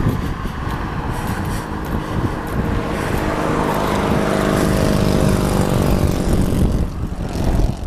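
A motor vehicle driving past on the street, its engine hum loudest about halfway through, over low rumble.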